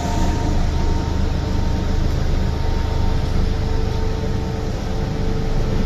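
MTR M-Train electric multiple unit pulling away from the platform: its traction motors give a steady whining tone, the 'ghost call' motor sound, over the low rumble of the car.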